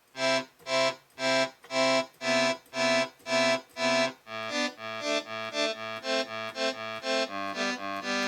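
Roland JX-3P analog synthesizer with the Kiwi-3P upgrade playing its oboe preset, a reedy synth tone. Evenly repeated notes about twice a second, then from about four seconds in a quicker figure of shorter, lower notes.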